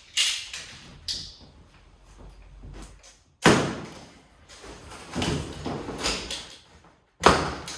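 A series of sharp knocks and thuds with some scraping, as a boxed dishwasher and its cardboard packaging are handled and opened. The two loudest knocks come about three and a half seconds in and near the end.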